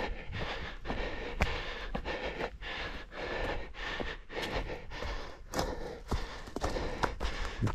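A runner panting hard close to a head-mounted microphone, in a steady rhythm of about two breaths a second.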